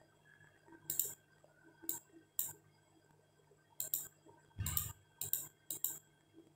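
Computer mouse clicking, about ten short sharp clicks at irregular intervals, as a password is clicked in on the NVR's on-screen keyboard.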